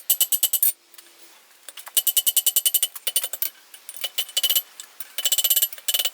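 Rapid hammer blows on hot mild steel over an anvil, about ten a second with a high metallic ring, in four runs with short pauses between, forging a flat on the end of the shackle arm.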